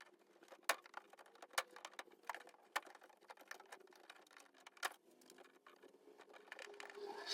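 Faint, scattered sharp clicks of plastic push clips being pried out of a VE Commodore's mud flap and rear bumper edge, with a soft rustle near the end.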